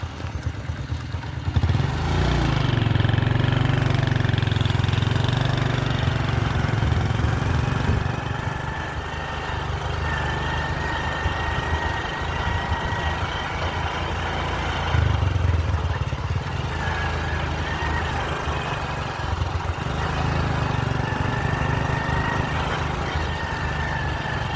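An engine running steadily. It gets louder about two seconds in and surges briefly again around fifteen seconds.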